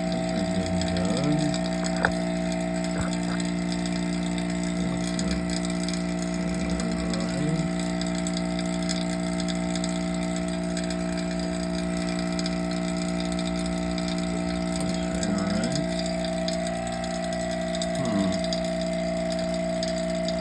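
Vacuum pump running steadily with a constant hum, pulling a vacuum on the chamber. A single sharp click sounds about two seconds in.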